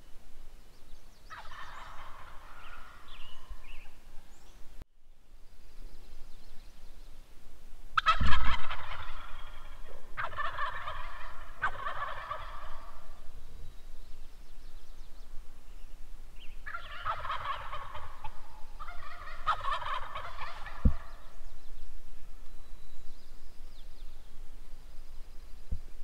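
Wild turkey toms gobbling, about six rattling gobbles in three groups, some following straight on from one another. A low thump, the loudest sound, comes at the start of a gobble about eight seconds in.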